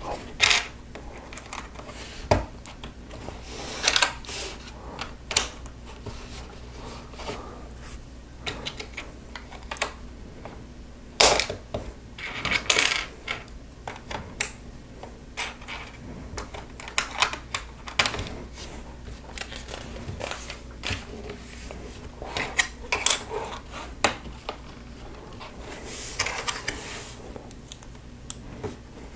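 Small plastic LEGO pieces clicking and clattering irregularly as they are handled, picked out and pressed together.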